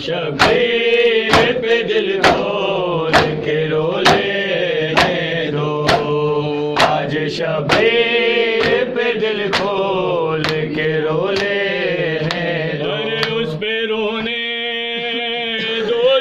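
Male voices chanting an Urdu noha, a Shia mourning lament, kept in time by matam: sharp slaps of hands beating on chests about once a second, fainter near the end.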